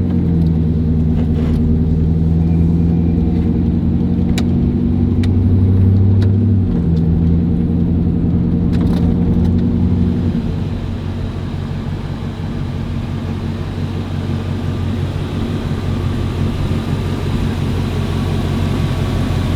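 Ford Excursion running under way: a steady engine drone that shifts in pitch about six seconds in, then gives way to an even road rumble after about ten seconds. A few sharp clicks come in the first half.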